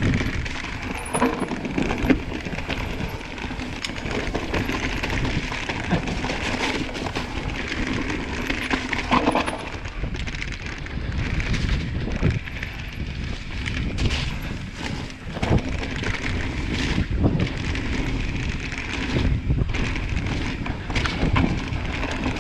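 Mountain bike being ridden over a dirt trail: steady tyre and rattling noise with frequent sharp knocks as the bike goes over bumps and roots.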